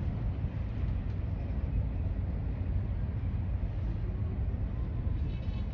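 Harbour ambience: a steady low rumble with no distinct events.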